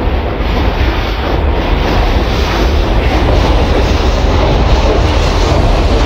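Steam engine running: a loud, steady rush of steam noise over a heavy low rumble.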